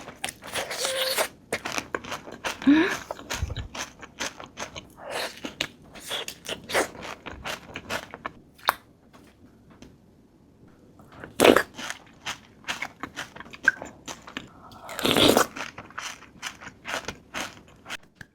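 Close-up crunching and chewing of a Dubai chewy cookie, its crisp shredded-pastry (kadaif) filling crackling under the teeth in many sharp little crunches. There is a quieter pause about halfway through, then louder bites.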